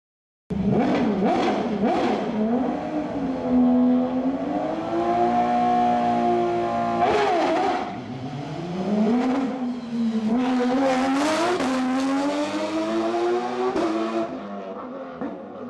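Rally car engine revving hard through the gears, its pitch climbing and dropping at each shift and lift, with a few sharp cracks, easing off near the end. The sound cuts in abruptly about half a second in.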